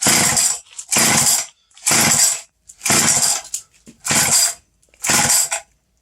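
1973 Frontier Mark 1 VIP two-stroke chainsaw being pull-started: six rope pulls about a second apart, each a short rasping burst as the recoil starter turns the engine over, and the engine does not catch between pulls.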